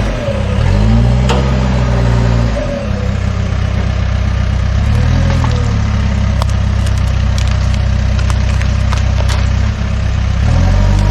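Case backhoe's diesel engine running, revving up and settling back down three times: a long rev early, a short one around five seconds in, and another near the end. A few faint clicks are heard over the engine.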